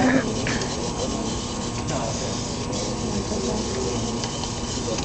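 Micromouse robot's small drive motors running with a steady mechanical whir as it drives through the maze, over faint chatter from onlookers.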